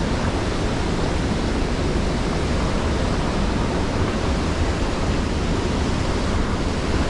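Water rushing through a dam's open floodgates and churning in the river below: a loud, steady rush with no break.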